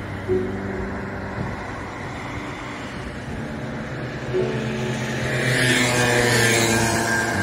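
A motor scooter riding past on the road, its engine and tyre noise building to the loudest point about six seconds in, over general street traffic.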